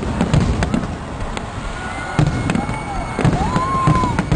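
Fireworks going off in quick succession: a loud, irregular run of sharp bangs and crackles.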